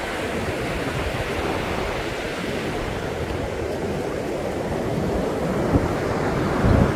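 Ocean surf washing steadily onto a sandy beach, with wind rumbling on the microphone, strongest near the end.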